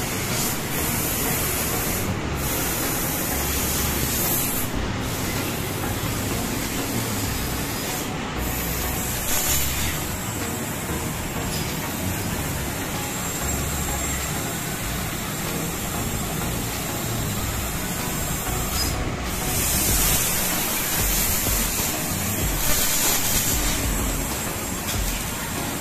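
Senfeng fiber laser cutter cutting metal plate: a steady hissing rush from the cutting head. The highest part of the hiss drops out briefly a few times and is louder for a while near the end.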